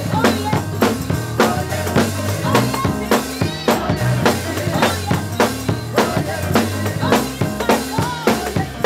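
Live gospel music played loud: a drum kit keeps a fast, steady beat under a bass line and keyboard, with a tambourine struck and a man and a woman singing into microphones.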